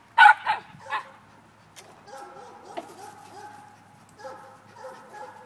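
Small hunting dog barking up a tree: three sharp barks in the first second, then a run of quieter, drawn-out whines and whimpers.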